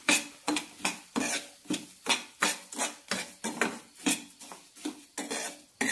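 Metal spoon stirring and scraping dry semolina against a stainless steel pan as it is roasted in ghee and oil, in quick regular strokes a little more than two a second.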